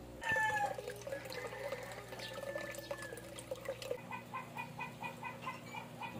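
Chickens clucking faintly, with a short falling call about half a second in and a run of quick, evenly spaced clucks, about three a second, in the last two seconds.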